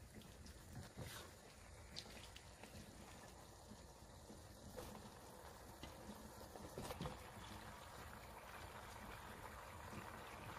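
Near silence: chicken wings in char siu sauce simmering faintly in a wok, with a few soft ticks of a spatula against the pan as the wings are lifted onto a plate.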